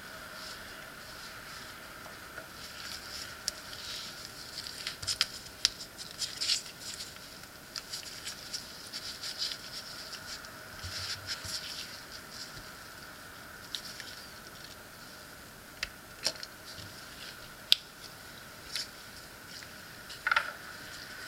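Small watchmaker's tools clicking and scraping on the metal parts of a Seiko 4R36 automatic watch as it is disassembled: irregular light, sharp clicks, busiest in the middle, over a faint steady high hum.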